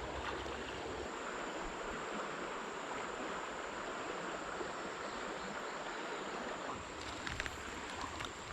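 Shallow creek water running steadily over its bed, with a few faint ticks about seven seconds in.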